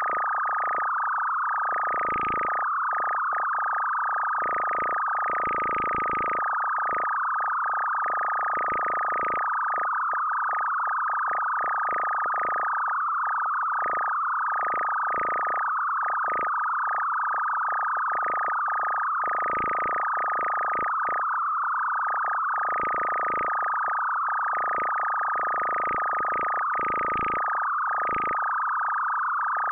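Electronic music: one steady, high synthesized tone held throughout, with a fast, irregular flutter around it.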